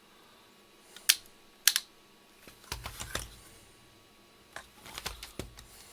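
Light handling clicks and taps of small plastic parts on a workbench: two sharp clicks a little after a second in, then a scatter of softer clicks and dull knocks.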